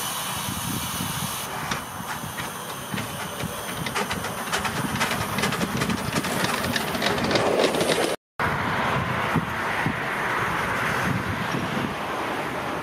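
Miniature live-steam locomotive hissing steam, with a busy run of clicks and knocks as it pulls off a turntable. After an abrupt cut, a steadier hiss of steam.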